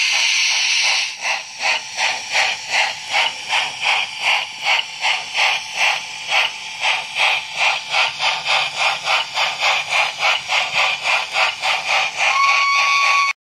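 Sound-equipped model steam locomotive: a steady steam hiss, then from about a second in a regular exhaust chuff at about two and a half beats a second, and a short steady whistle near the end.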